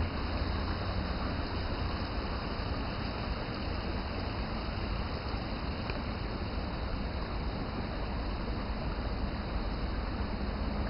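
Steady low rumbling noise with no distinct events, even throughout.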